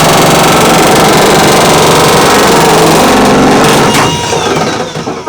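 Power cutting tool chewing through a van's sheet-metal side panel, running steadily and loudly. About four seconds in it is released and winds down, followed by a few clicks of handling.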